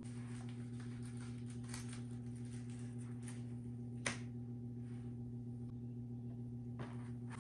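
Light clicks and taps of small items, a wooden incense-stick holder and a small box, being handled and set down on a wooden coffee table, with a sharper click about four seconds in. Beneath them runs a steady low hum.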